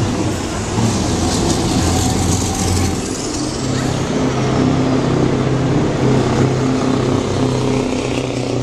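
Open-piped Scania V8 truck engines running loud as trucks drive past one after another, the engine note changing about three seconds in as the next truck comes through.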